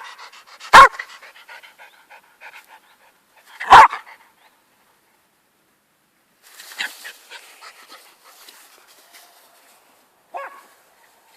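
Jack Russell terrier barking: two loud single barks about three seconds apart, with quick panting between them, and a shorter, weaker bark near the end.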